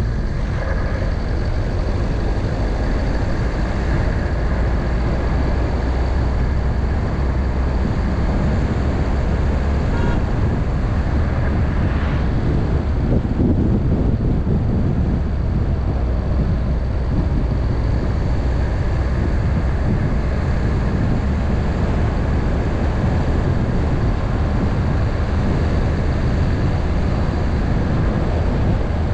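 Car driving steadily along a road: continuous low rumble of engine and tyres.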